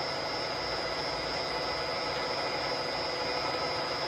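Wells-Index vertical milling machine running steadily, its spindle turning a coaxial indicator with no cut being made. It gives a steady hum with a thin, high-pitched whine.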